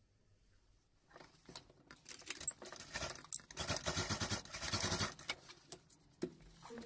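Industrial sewing machine stitching through cotton canvas in a short run, mixed with the rustle and rattle of the cloth being handled; loudest in the middle, fading about a second before the end. Light background music comes in near the end.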